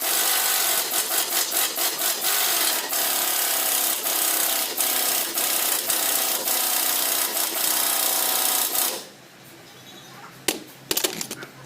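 Pneumatic impact wrench running in one long burst of rapid hammering, cutting off sharply about nine seconds in; a few metallic clinks follow near the end.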